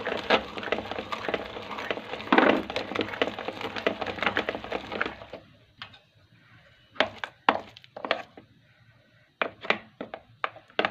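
Hard remedy ingredients being ground: a dense, crackling grind that cuts off suddenly about five seconds in, followed by a few separate knocks.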